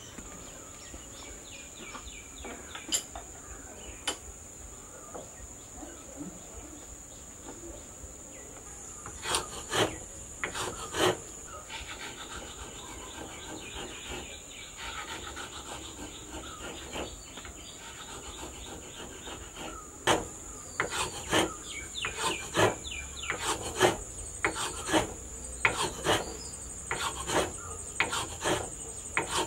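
Hand file rasping in runs of back-and-forth strokes on wooden knife-handle scales clamped in a vise: a few strokes about a third of the way in, then a long run over the last third. A steady high insect drone sounds throughout.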